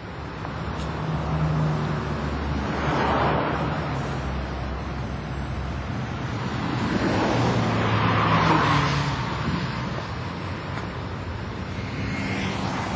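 Road traffic: a steady low engine rumble with vehicles swelling past, loudest about three seconds in and again about eight seconds in.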